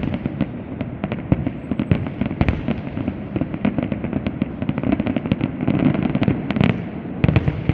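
Castillo fireworks display going off: a dense, rapid run of bangs and crackles with no let-up.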